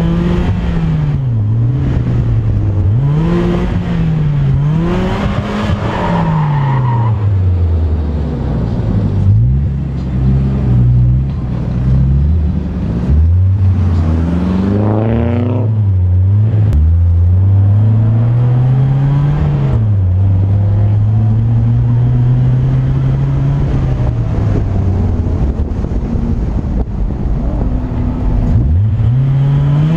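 BMW E36 drift car's engine revving hard on the throttle through slides, its pitch climbing and dropping again every second or two, with a long steady pull in the second half.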